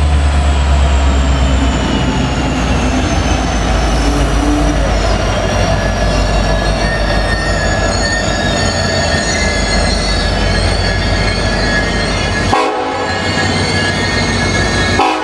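Union Pacific SD70ACe diesel locomotives rumbling past at close range, followed by passenger cars rolling by, with steel wheels squealing on the rail. The heavy low engine rumble is strongest in the first couple of seconds and eases as the cars take over.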